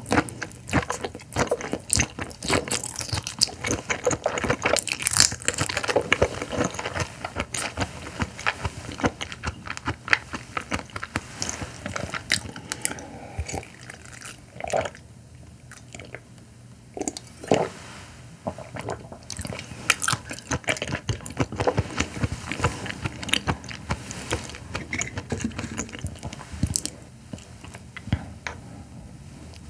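Close-miked chewing of a raw carabinero prawn: dense, quick wet clicks and smacks. About halfway through it goes quieter for a sip of white wine, then chewing starts again.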